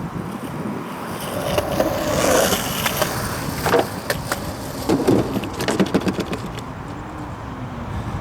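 Skateboard wheels rolling on a concrete ramp during kick-turn practice. The rolling swells a couple of seconds in, and several sharp clacks of the wheels and tail on the concrete follow between about three and six seconds in.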